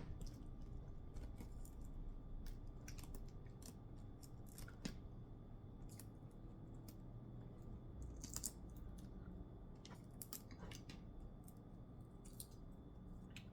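Faint, irregular small clicks and crackles of eggshell being cracked and peeled off a hot boiled egg by hand.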